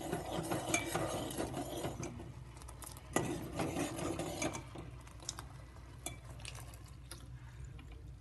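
Metal spoon stirring liquid rasam in a metal pot, scraping and clinking against the pot's sides, with one sharp clink about three seconds in. The stirring is busiest in the first half and lighter after.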